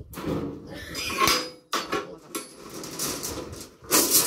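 Steel reinforcing bars clanking and rattling against each other as a bundle is dragged by hand over a truck's side rail, with several ringing metallic clanks, the loudest about a second in and near the end.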